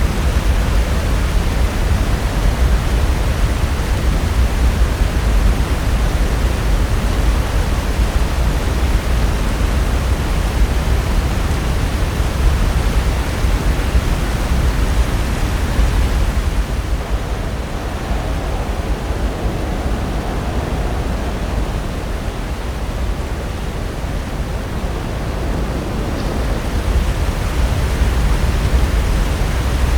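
Pacific Ocean surf breaking: a continuous rushing wash of waves that eases a little past the middle and builds again near the end.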